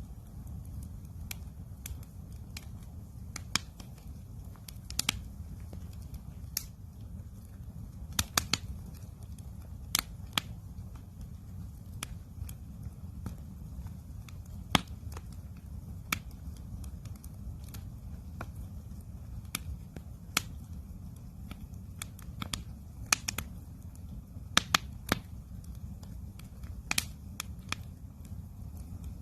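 Campfire crackling: sharp, irregular snaps and pops, a few louder than the rest, over a steady low rumble.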